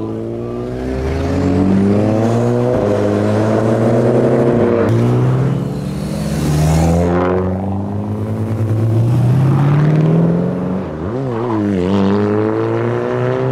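Car engine accelerating, its pitch climbing in three long rises with a drop after each, like gear changes. Near the end the pitch wavers up and down.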